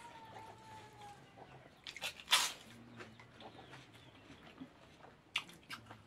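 Close-miked eating sounds: a person chewing and crunching food, with a few short sharp crunches, the loudest about two seconds in and another near the end. A faint falling whistle runs through the first second.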